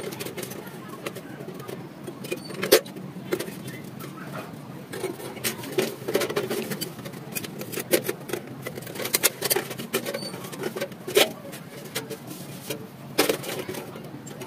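Irregular sharp knocks and clicks, some much louder than others, over a steady low hum.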